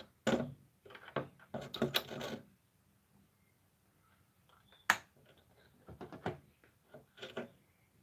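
Clicks and knocks of hard objects being handled and set down: a quick cluster in the first two seconds or so, then a sharp single click about five seconds in and a few lighter knocks near the end.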